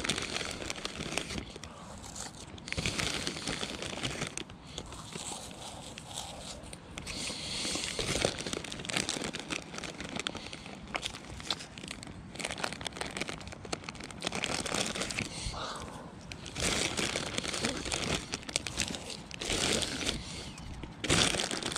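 Irregular rustling and crunching with scattered clicks, coming in uneven bursts.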